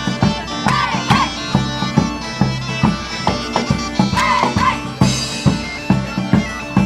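Folk bagpipes playing a melody over a steady drone, with a regular drum beat.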